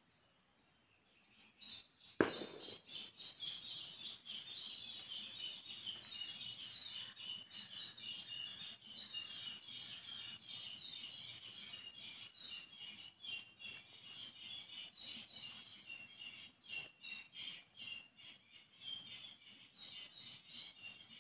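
Dense, continuous chorus of short high chirps from many animals, setting in about a second and a half in, with one sharp click just after.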